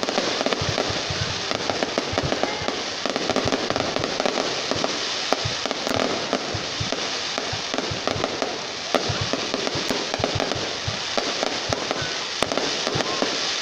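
Fireworks display: a dense, continuous crackling with many rapid sharp pops and bangs from aerial shells bursting one after another.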